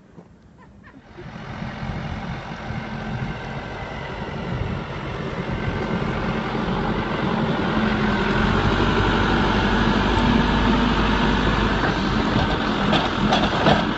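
An engine running steadily. It comes in about a second in and grows louder over several seconds, with a few sharp knocks near the end.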